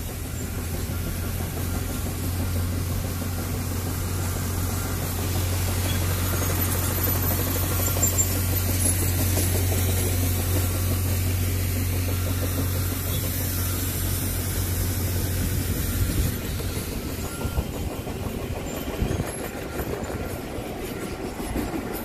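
Subaru's engine and tyres heard from inside the cabin while driving slowly, a steady low drone over road noise. The drone drops out about three-quarters of the way through, leaving a rougher rumble.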